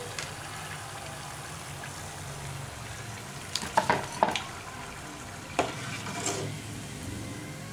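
Hot oil sizzling steadily as golden-brown, batter-coated suyyam balls are deep-fried and lifted out with a metal slotted skimmer. There are a few sharp clinks of the skimmer: a quick cluster about three and a half to four seconds in, and two more near six seconds.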